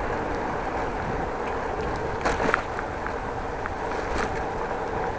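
Bicycle riding along an asphalt cycle path: steady tyre and wind noise on the microphone, with two short sharp knocks, about two seconds and about four seconds in.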